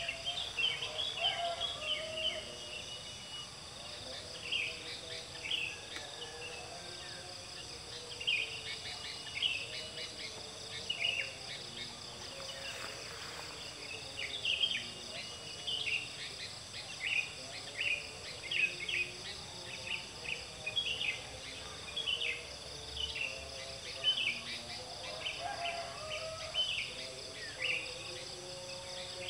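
Outdoor ambience: small birds chirping, short high notes repeating irregularly, over a steady high-pitched insect drone.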